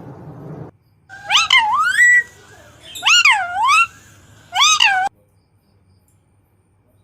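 Pet parrot giving three loud, meow-like calls, each swooping down and back up in pitch, about a second and a half apart.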